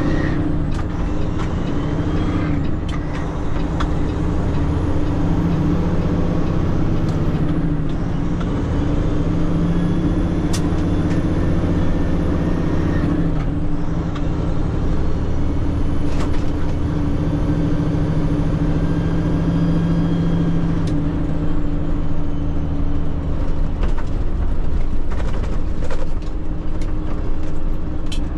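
Tanker semi-truck's diesel engine running while driving, heard inside the cab, hauling a full tank of about 50,000 pounds of liquid. The engine note shifts a few times, and there are scattered light clicks and rattles.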